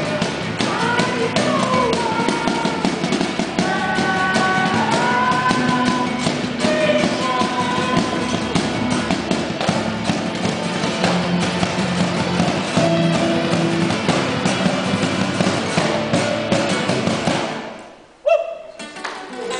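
Music with guitar, playing continuously, then dropping away sharply near the end before coming back in briefly.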